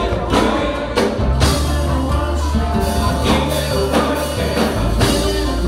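Live worship music from a band, with drum hits and long, deep bass notes.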